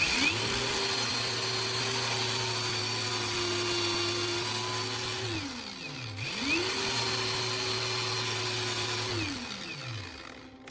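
Angle grinder fitted with a DVD disc, switched on twice: each time the motor spins up, runs steadily with a high whine and hiss, then winds down after it is released.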